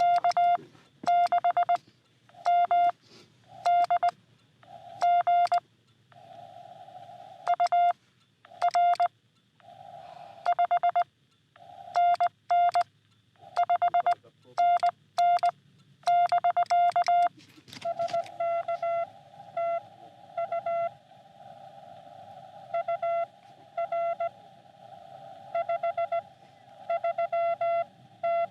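Morse code (CW) from a Xiegu X6100 ham radio transceiver: a single steady tone keyed on and off in dots and dashes. For the first two-thirds the keying is loud with quiet gaps, like the radio's own sidetone while sending. From about 18 seconds on a fainter reply comes in over a steady hiss of band noise, as a station is received.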